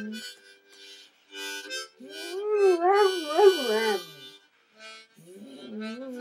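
Yellow Labrador howling along to a harmonica: one long, wavering howl about two seconds in, lasting about two seconds and the loudest sound here, and another starting near the end. The harmonica plays held chords underneath.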